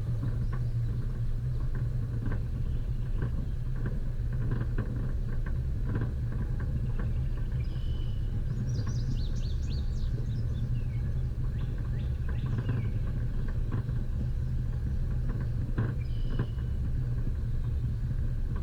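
Off-road vehicle's engine running steadily at low revs on a rough dirt track, with frequent knocks and rattles from the bumpy ride. A few brief high chirps come about halfway through and again near the end.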